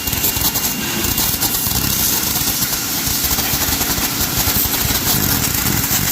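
Pressure washer running steadily, spraying a jet of water.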